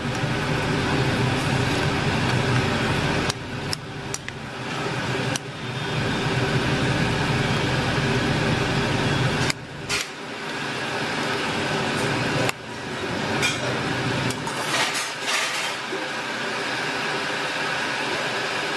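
A metal spoon stirring curd rice in a ceramic bowl, with scattered sharp clinks and scrapes against the bowl, over a steady background hum.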